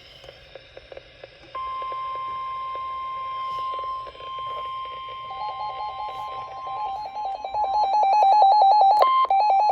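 NOAA Weather Radio's 1050 Hz alarm tone, one steady tone starting about a second and a half in. From about five seconds in, a weather radio receiver's own rapid electronic alert beeping joins it and grows louder, the receiver set off by the broadcast tone.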